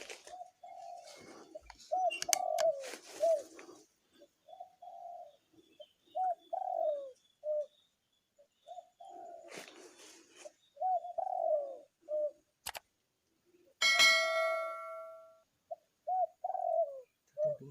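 Barred cuckoo-dove cooing in repeated phrases of three or four low, hooked notes. Late on, a sharp crack with a ringing metallic tone that fades over about a second and a half is the loudest sound; brief rustling comes earlier.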